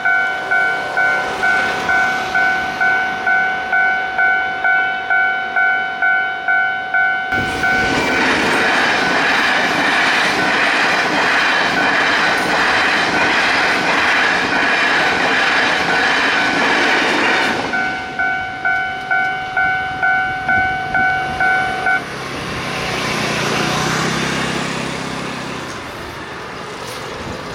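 Level-crossing warning bell ringing about twice a second. About seven seconds in, a TRA train passes for about ten seconds, its wheels on the rails drowning out the bell. The bell rings on briefly after the train has gone, stops suddenly, and a lower engine rumble follows.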